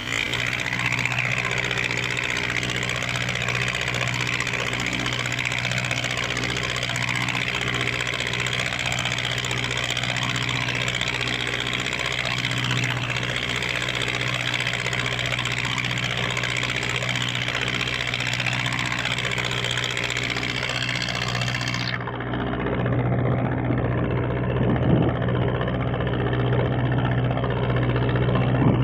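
A small wooden cargo boat's Mitsubishi 4D31 four-cylinder diesel engine running steadily under way, a constant low drone, with water rushing and splashing along the hull. Near the end the hiss suddenly drops away and the engine drone comes forward.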